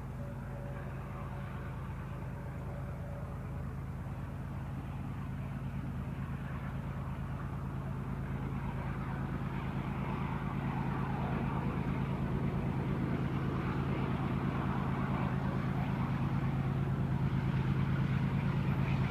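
Diesel freight locomotives working as they approach: a steady low engine drone that grows gradually louder.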